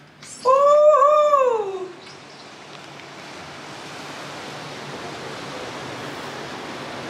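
A woman's long wordless cry of delight, rising a little and then falling away over about a second and a half. It is followed by a steady hiss of sea surf and wind that slowly grows louder.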